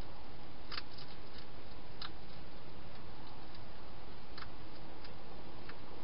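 Wild hedgehog chewing dry food, a few sharp crunches at irregular intervals over a steady hiss.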